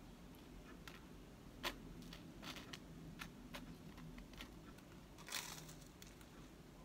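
Butter knife spreading jam on a slice of toast: light scrapes and clicks, the sharpest about a second and a half in, and a longer scrape about five seconds in as the knife comes down onto the plate.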